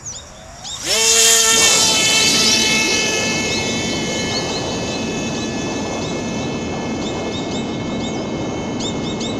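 Electric motor and propeller of a small foam RC glider spooling up with a rising whine about a second in, then running at a steady high whine as the plane is launched and flies off, growing slightly fainter.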